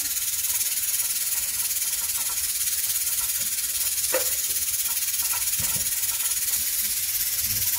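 A steady high hiss, with a faint short knock about four seconds in.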